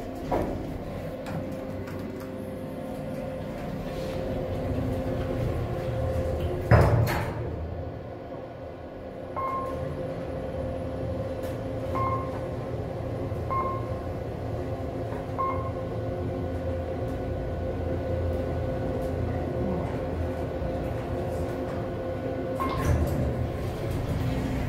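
KONE MonoSpace traction elevator: its doors sliding and closing with a loud thud about seven seconds in, then a steady hum as the car travels, with four short beeps as it passes floors. Door and mechanism clatter returns near the end as it arrives.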